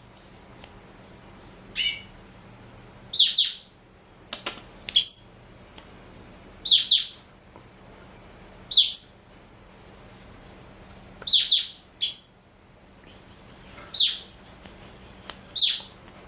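Male black-throated canary (blackthroat) calling in short, sharp chirps, one every one to two seconds, each with a quick falling sweep. A thin, high buzzy trill runs for a couple of seconds near the end.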